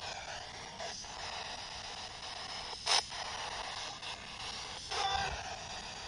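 Spirit box rapidly scanning FM radio: steady radio static with brief broken fragments of broadcast sound and a sharp crackle about three seconds in. It cuts off abruptly near the end.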